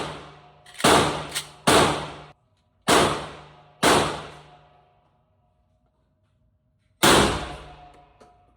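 Shots from an SDS VP12 semi-automatic 12-gauge shotgun, each a sharp report with a ringing echo tail. Six come in quick, uneven succession over the first four seconds, then after a pause of about three seconds one more is fired.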